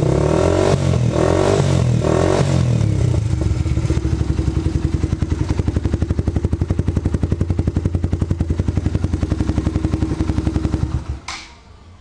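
Suzuki Intruder 125's single-cylinder engine through a Roncar aluminium aftermarket exhaust: a few throttle blips in the first seconds, then a steady idle with even pulses. It is shut off about eleven seconds in, with a short click as it stops.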